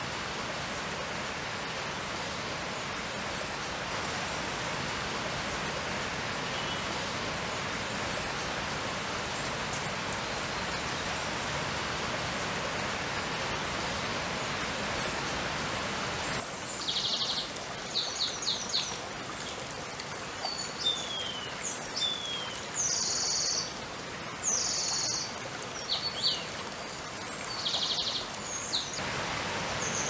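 Shallow stream running over stones, a steady rush of water. About halfway through, the sound changes suddenly to a quieter background with a small songbird singing short high notes, quick trills and falling whistles.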